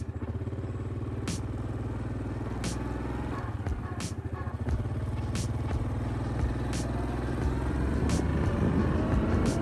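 A motor vehicle's engine running steadily, getting rougher and a little louder near the end, with a faint sharp click about every second and a half.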